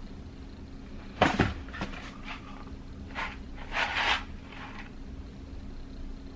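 Packaged rice boxes and packets being handled in a kitchen: a knock about a second in, then several short rustles and clatters. A steady low hum runs underneath.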